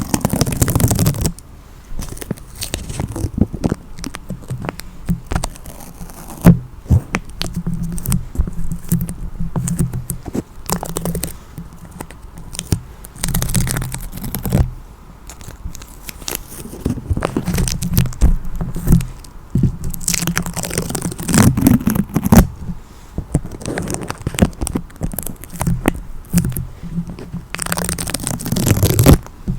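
Adhesive tape being peeled off a surface: a steady run of small sticky crackles, with a few longer, louder peeling rips.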